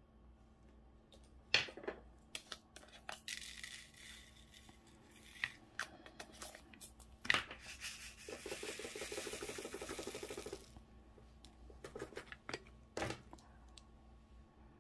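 Small plastic diamond-painting drills rattling in a plastic sorting tray as it is shaken for a couple of seconds, about eight seconds in. Sharp clicks of the tray being knocked and set down come before and after it, with a short stretch of hiss as drills slide and pour.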